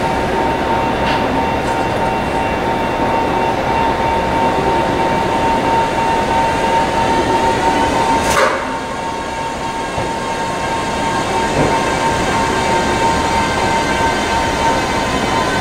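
JR East 211-series electric commuter train pulling slowly into a station platform. A steady high whine runs over the rolling rumble, and there is a single sharp clank about eight seconds in.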